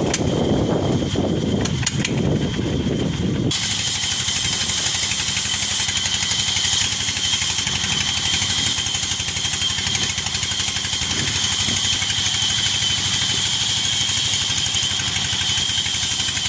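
A stationary engine running and driving a large vertical band saw. A few seconds in, the sound changes suddenly to a steady high whine over a noisy hiss as the band saw blade cuts through a log section, with the engine still running underneath.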